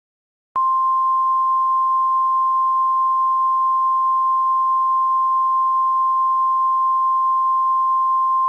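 The NOAA Weather Radio 1050 Hz warning alarm tone: a single steady, high-pitched beep that starts about half a second in and is held at one pitch and level. It is the attention signal announcing a tornado warning.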